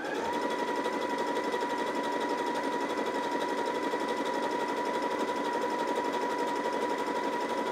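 Janome JW8100 sewing machine stitching a zigzag at steady speed: a steady motor whine over a rapid, even needle rhythm. It sounds very consistent, the sign of a machine now threaded correctly and sewing properly.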